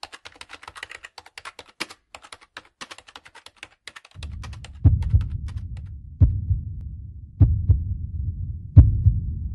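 Computer keyboard typing in quick clicks for about four seconds. Then a low heartbeat sound effect begins, paired thuds about every second and a half over a low rumble.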